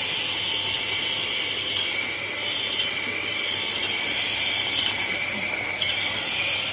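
Automatic N95 face mask production machine with ultrasonic welding running: a steady mechanical whir with a high hiss over it.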